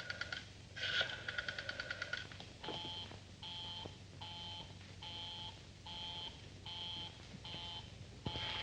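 Telephone rotary dial clicking out digits, then the line's busy signal: short, even, two-tone beeps about one and a half a second, meaning the number called is engaged.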